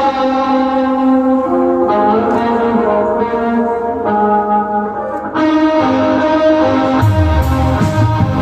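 Live rock band playing an instrumental passage: held, effects-laden electric guitar notes changing every second or two, with bass and drums coming in about seven seconds in.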